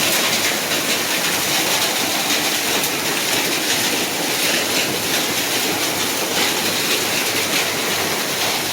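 Heavy rain with hail pouring down in a storm: a steady, even rushing hiss with faint scattered ticks of hailstones striking.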